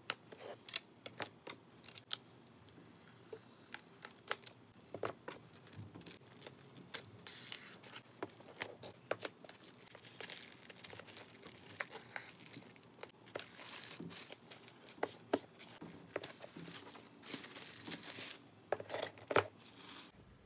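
Packaging handled and torn by hand: irregular crackles, taps and tearing sounds with a few longer stretches of rustling. It cuts off sharply just before the end.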